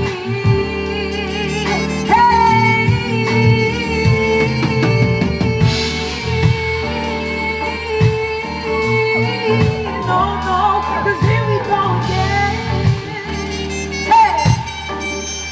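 Live band music with a woman singing over it.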